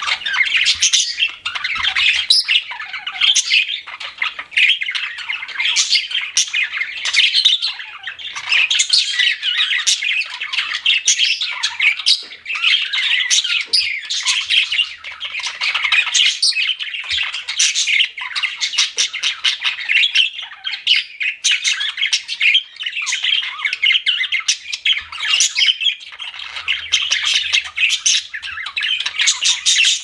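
Budgerigar chatter: a loud, unbroken stream of rapid chirps, clicks and squawky warbling notes.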